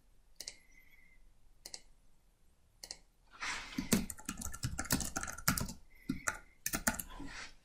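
Typing on a computer keyboard: a few single key clicks, then a quick run of keystrokes from about three seconds in.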